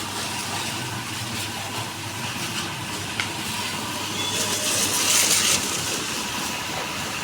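Steady hum of a pressure washer's pump motor at a bike wash, with a loud hiss of water spray for about a second midway and a single click a little before it.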